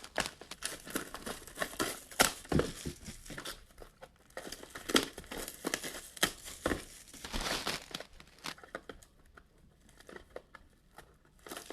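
Plastic wrap being torn and crumpled off small sealed card boxes: irregular crinkling and ripping, quieter for a couple of seconds near the end.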